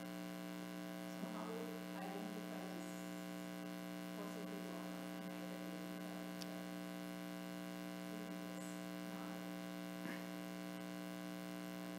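Steady electrical mains hum, a low drone with many even overtones. Faint, indistinct sounds come and go underneath it.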